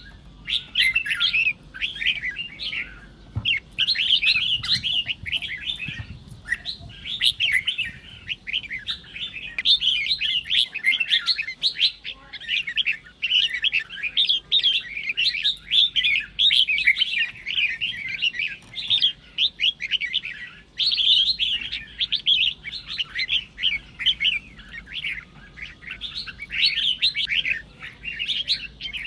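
Red-whiskered bulbuls singing in quick chattering, warbling phrases, with only brief pauses.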